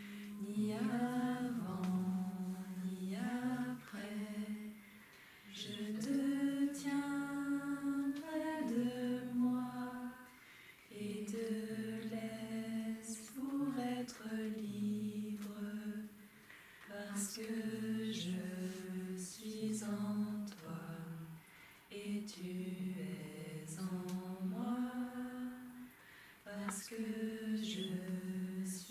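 Unaccompanied voices singing a slow, gentle song, holding long notes in phrases a few seconds long with brief pauses between them.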